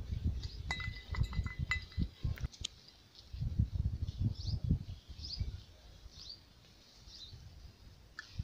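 Small metal toy utensils clinking and knocking as they are handled, with soft thumps of movement on soil. In the second half a bird chirps briefly about once a second.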